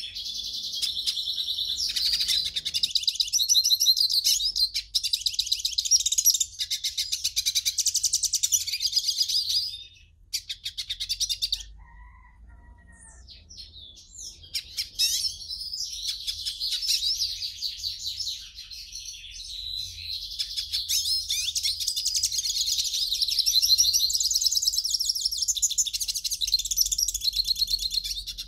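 European goldfinch singing: a rapid, tinkling twitter of quick varied notes, breaking off for about three seconds around a third of the way in and then resuming.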